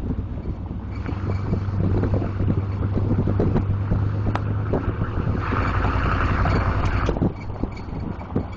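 Chevrolet 1500 pickup truck running with a steady low hum and many light clicks, making a weird squeaky noise whose cause is unknown. A higher-pitched noise comes in for about a second and a half past the middle, then the hum drops away.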